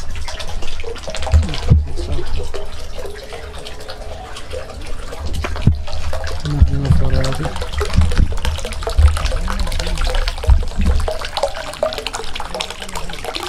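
Small garden fountain jet splashing steadily into its stone basin, with a low rumble on the microphone underneath.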